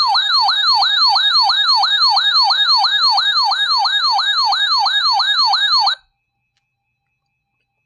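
Electronic siren-style alert tone in a fast yelp, sweeping up and down about three and a half times a second. It cuts off abruptly about six seconds in.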